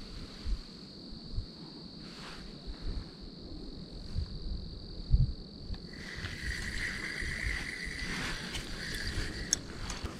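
Crickets trilling steadily, with low rumbling knocks of handling on the microphone. About six seconds in, a steady whir sets in as the spinning reel is cranked to wind in the line.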